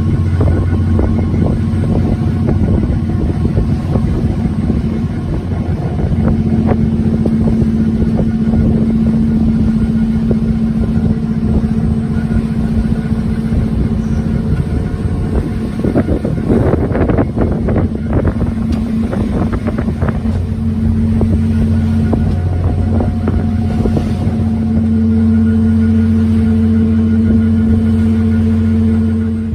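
Steady drone of a Nordhavn 50 trawler's diesel engine heard aboard while underway, with a brief rush of rougher noise about two-thirds of the way through.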